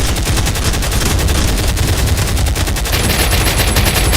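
Rapid automatic gunfire, a fast unbroken stream of shots with heavy bass, as in a dubbed-in machine-gun sound effect.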